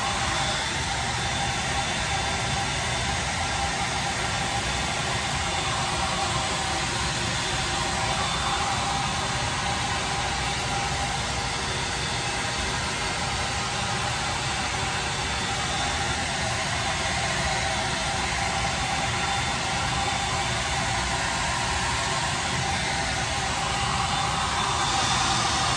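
Handheld Remington hair dryer running steadily on a constant setting, blowing air through wet hair. Its air noise grows a little brighter near the end.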